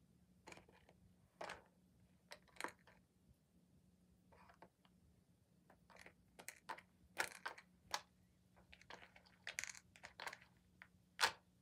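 Hard plastic treat puzzle toy clicking and clacking irregularly as a cat nudges and paws at its sliding covers to get at treats, with the loudest knock near the end.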